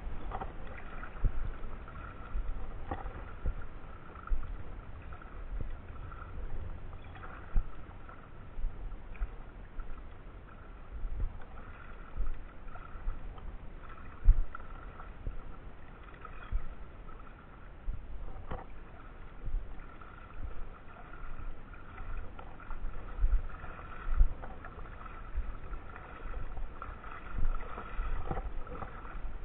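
Water lapping and sloshing in shallow water, with irregular low rumbles of wind or handling on the microphone.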